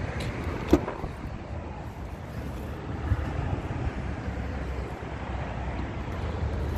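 Wind noise on the microphone, a steady low rumble. Under a second in comes one sharp click as the Fiat Punto's rear door latch is released, and a smaller knock follows about three seconds in.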